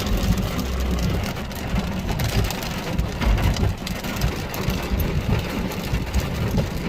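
Heavy rain pelting a stopped car, a dense patter of drops over a low rumble, heard from inside the car during a sudden desert downpour with strong wind.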